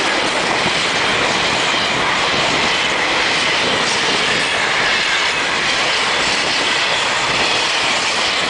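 Container freight train's wagons passing close by at speed: a loud, steady rush of steel wheels running on the rails.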